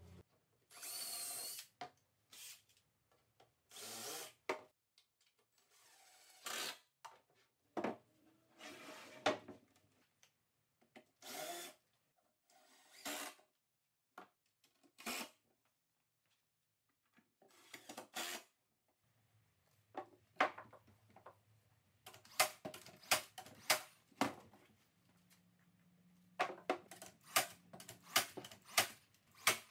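Cordless drill/driver run in short bursts, about eight times, driving screws into plywood and 2x4 framing. Near the end comes a quick run of sharp snaps from a brad nailer firing nails.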